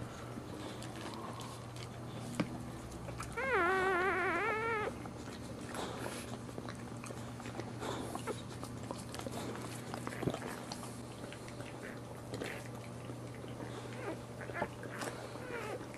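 Newborn Boxer puppy giving one wavering, squeaky cry lasting about a second and a half, about three seconds in. Around it are small wet clicks and rustles of the mother licking the puppies, over a steady low hum.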